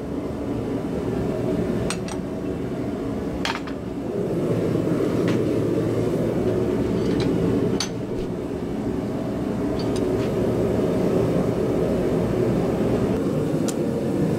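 Gas forge burner running with a steady, even noise, with a few scattered sharp hammer strikes on a hot chisel cutting teeth into a hot steel bar held in a vise.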